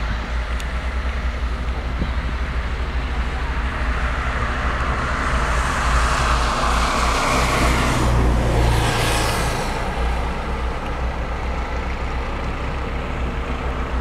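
A motor vehicle passing, growing louder to a peak about halfway through and then fading, over a steady low rumble.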